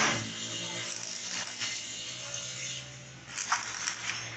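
Stick-welding arc crackling as a rod electrode welds a bicycle chain to a steel axe head, over a steady low hum, with one sharp snap about three and a half seconds in.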